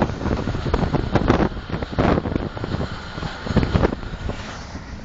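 Karakoram Express passenger train running at speed: a low rumble of wheels on the track with wind buffeting the microphone in gusts, easing off near the end.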